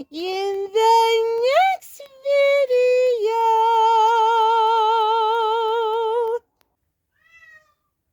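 A woman's voice singing meows: a few short rising notes, then one long held note with a steady vibrato that cuts off sharply about six seconds in.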